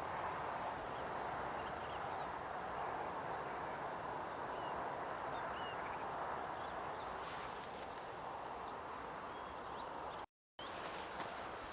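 Outdoor night ambience: a steady, even rushing noise with faint, short chirps scattered through it. The sound cuts out completely for a moment near the end.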